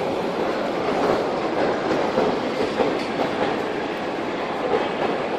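Steady mechanical rumble and clatter of an underground metro station, with faint irregular clicks throughout.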